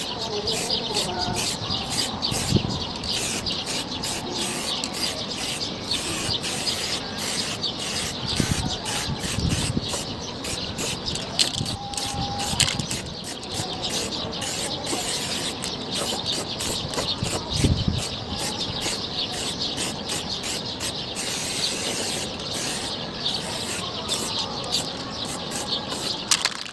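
Aerosol can of silver spray paint spraying onto a motorcycle wheel, a steady hiss broken into many short rapid pulses.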